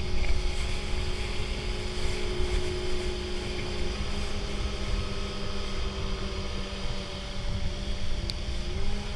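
Boat engine running steadily under way: a low rumble with a steady hum whose pitch shifts slightly around four seconds in and again near the end, over wind and water noise.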